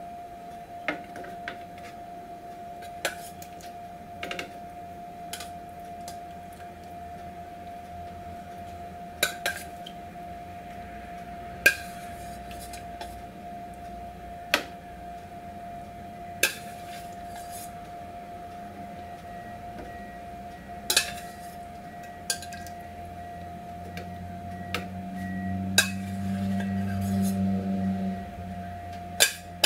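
A metal spoon knocking and clinking against a stainless steel pot as cooked potatoes are scooped out of it: about a dozen sharp separate knocks spread out. A faint steady hum runs underneath, and a low hum swells near the end.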